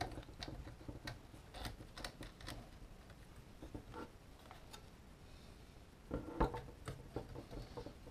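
Light clicks and taps of hands handling a DJI Phantom quadcopter's plastic frame and wiring, with a cluster of louder knocks about six seconds in.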